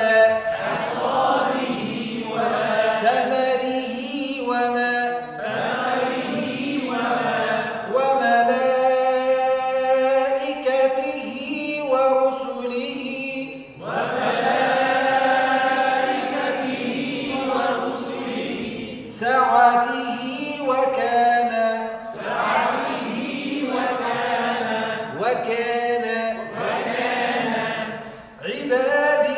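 A man reciting Quranic Arabic in a chanted tajweed style, drawing out long, steady held vowels between shorter phrases.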